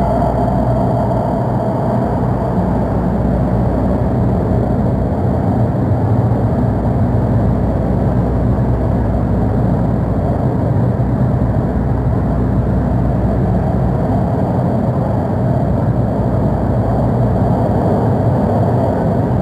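Inside a Santiago Metro Line 6 AS-2014 train running at speed through the tunnel: a steady rumble of wheels on rail with a low motor hum. A higher whine fades out in the first second or so.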